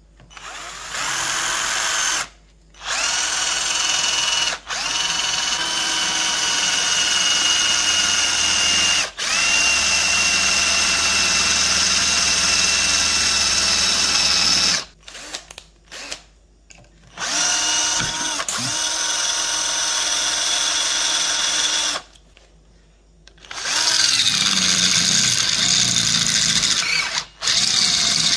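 Electric drill run in a series of bursts of a few seconds each with short pauses between them, its whine rising as it spins up at each start.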